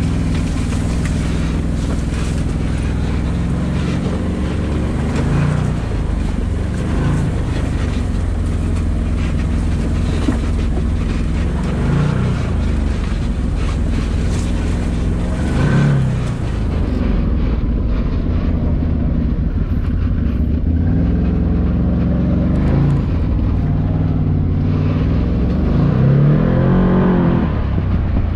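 Can-Am Maverick Sport side-by-side's 100 hp Rotax V-twin engine running under load while driving, its pitch rising and falling several times as the throttle is worked.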